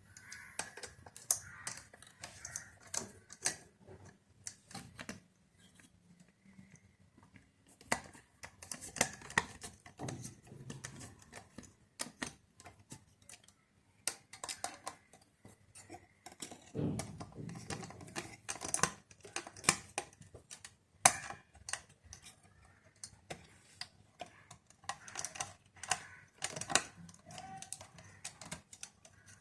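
Irregular clicks and small taps from a screwdriver and the parts of a CPU cooler being handled and fastened in place.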